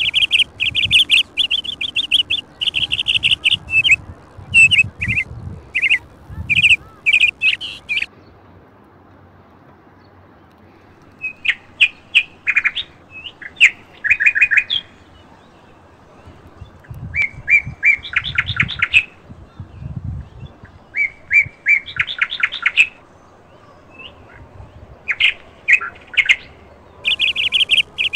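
Songbirds chirping in quick trilled bouts of rapidly repeated notes, with a pause of a few seconds about a third of the way through.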